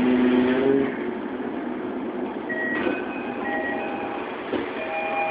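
Toei 12-000 series linear-motor train's GTO-thyristor VVVF inverter whining in two steady tones as the train brakes to a stop, the whine ending about a second in. A series of short electronic chime tones at several pitches follows from about halfway through, over the steady hum of the car.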